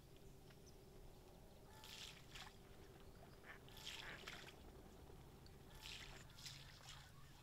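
Ducks on a pond calling faintly, in short clusters of calls roughly every two seconds.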